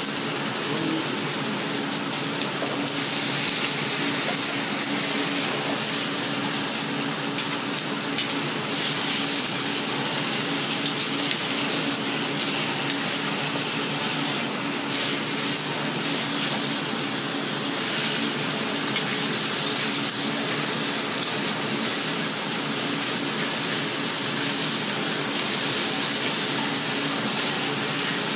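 Meat frying in oil in a stainless steel sauté pan, sizzling steadily, with a steady hum underneath.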